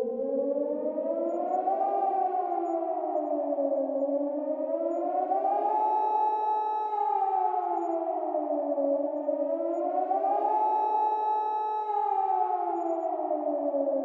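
Civil defense nuclear-attack warning siren wailing: two tones sound together, sweeping slowly up and down three times, holding briefly at the top of the second and third rises.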